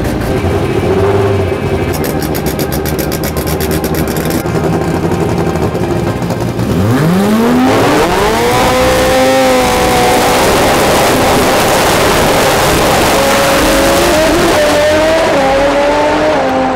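Honda four-cylinder drag car making a full pass: after some seconds of lower engine noise, the engine note climbs steeply at the launch about seven seconds in, then holds at high revs, dipping and stepping near the end as it changes gear.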